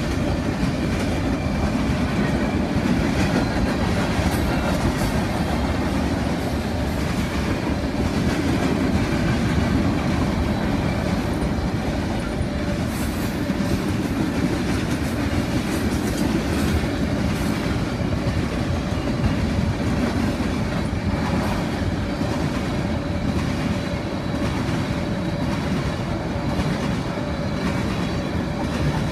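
Freight train cars rolling past: autoracks, hopper cars and tank cars on steel wheels, a steady rumble with the wheels clacking over the rails.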